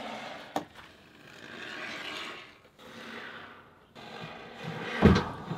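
Can of Great Stuff Gaps & Cracks expanding spray foam hissing out through its applicator straw in several drawn-out squirts, as the can is emptied into gaps. A sharp knock about half a second in and a louder thump near the end.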